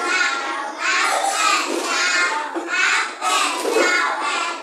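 Young children's voices singing together in short phrases.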